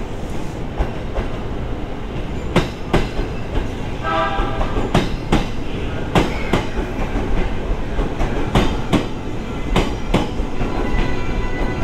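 JR East 209 series electric train rolling slowly past on the platform road, its wheels clicking over the rail joints in quick pairs every second or two over a steady low rumble. A brief higher-pitched tone sounds about four seconds in.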